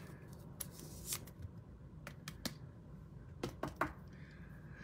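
Faint handling of 2021 Panini Mosaic football trading cards: quiet rustling with a scatter of sharp little clicks, three of them in quick succession about three and a half seconds in.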